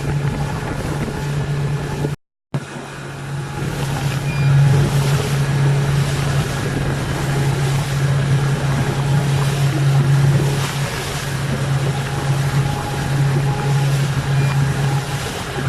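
A motorboat engine running with a steady low drone, over wind and water noise. The sound cuts out for a moment about two seconds in.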